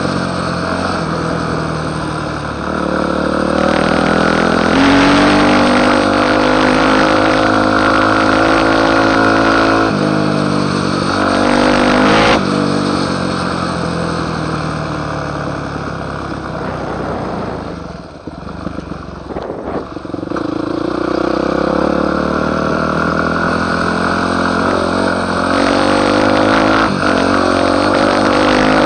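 Yamaha YZ250F four-stroke single-cylinder motocross engine under way, its note climbing and stepping down again as the throttle opens and the gears change. About two-thirds of the way through the throttle shuts and the engine note falls away for a couple of seconds before it pulls again.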